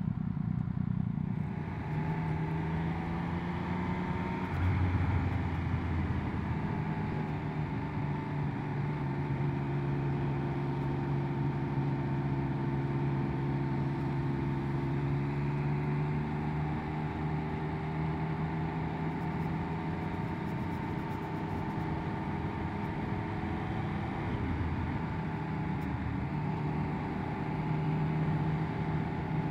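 Triumph Speed Triple 1200 RS three-cylinder engine heard through a helmet microphone with wind noise. It pulls away from a standstill a couple of seconds in, then runs at a steady cruise.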